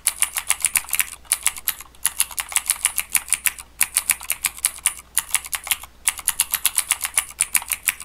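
Fast typing on a clicky mechanical keyboard: a rapid run of sharp keystroke clicks, several a second, broken by a few brief pauses.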